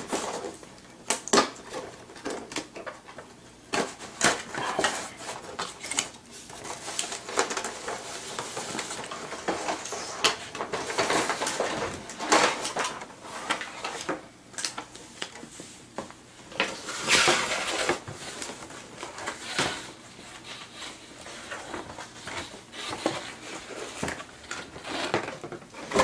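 A cardboard toy box being opened and a hard plastic toy fire truck taken out of it: irregular rustling and scraping of cardboard, with many clattering clicks and knocks of plastic.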